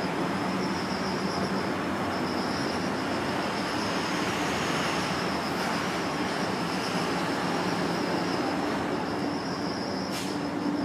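Steady outdoor background noise with insects trilling continuously at a high pitch, and a brief sharp high-pitched hiss about ten seconds in.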